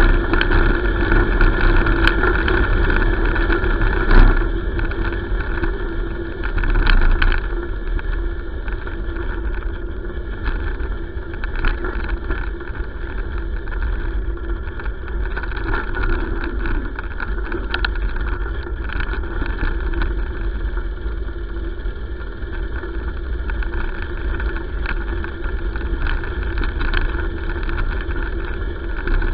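Wind buffeting a handlebar-mounted camera's microphone and tyres rolling over a gravel road, with a steady low rumble and scattered rattles and knocks from the bike, the loudest about four seconds in.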